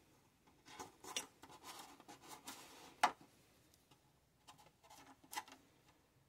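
Faint handling sounds of a marker and hands on a clear plastic RC car body with masking tape: soft scratching and rubbing, with a few sharp clicks, the loudest about three seconds in.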